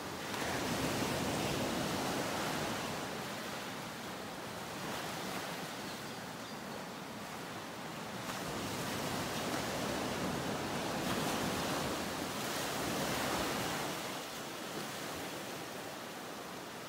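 Ocean waves washing onto a beach: an even surf hiss that swells and eases in slow surges several seconds apart.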